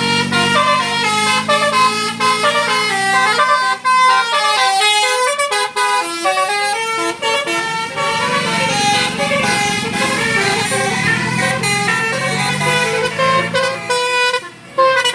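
Tour bus's telolet Basuri musical horn playing a fast tune in quick stepped notes, over the bus engine's low drone.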